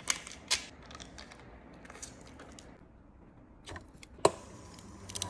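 A few light clicks and taps from handling a plastic yogurt cup, with a sharper knock near the end as the cup meets the cotton candy machine's spinner head during pouring.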